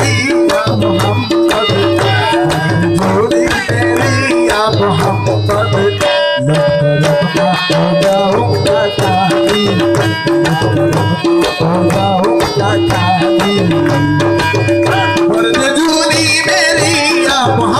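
Qawwali music: tabla playing a fast, steady rhythm under held harmonium chords, with a man singing in places. The music drops out briefly about six seconds in.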